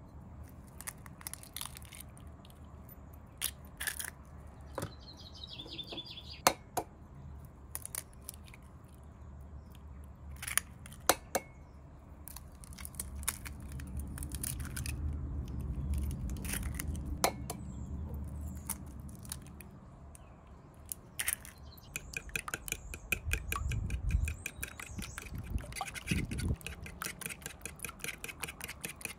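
Eggs being knocked and cracked open over a wooden bowl: scattered sharp taps and shell cracks. About three quarters of the way through, a fork starts beating the eggs in the wooden bowl, a fast even clicking of metal on wood, about five strokes a second.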